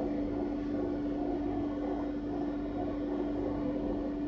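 A steady, unchanging hum with a faint hiss underneath.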